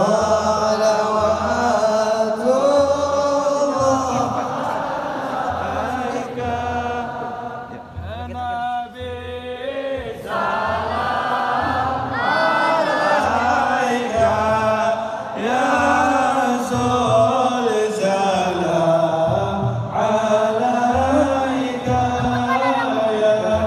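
A group of male voices chanting a devotional Islamic chant together, with a steady low beat beneath it.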